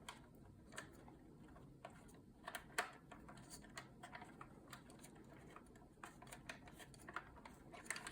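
Faint, scattered small clicks and ticks of an M3 screw being turned into a 3D-printed plastic stock until it catches the threads.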